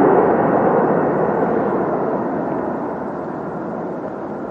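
Jet airliner's engines just after touchdown: a steady, loud rushing noise that slowly fades as the aircraft rolls out down the runway.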